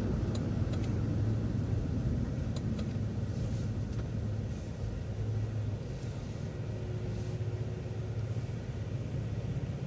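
City transit bus running, heard from inside: a steady low engine drone over road rumble, a little quieter after about six seconds.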